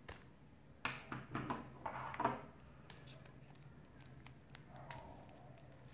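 Scissors cutting the thin plastic shrink-wrap seal around a small plastic toy jar's lid, with crackling and crinkling that is densest over the first couple of seconds. Then come a few light ticks and crinkles as the wrap is worked loose.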